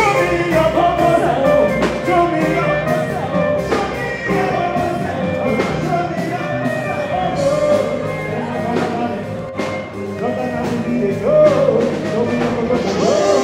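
Live music with a man singing into a microphone over a band, with regular drum hits.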